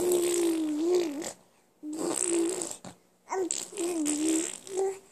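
A baby babbling: three drawn-out, breathy vocal sounds, each held at one pitch with small wobbles.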